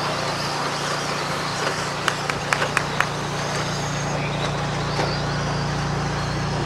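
Radio-controlled stock trucks racing on a dirt track: a steady wash of motor and tyre noise over a low hum, with about five sharp clicks in quick succession around two to three seconds in.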